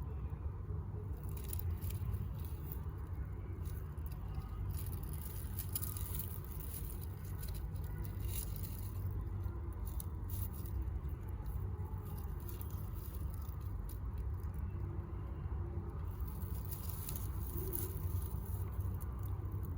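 Faint rustling and scratching of newborn rabbit kits shifting and climbing over each other in their nest, over a steady low rumble.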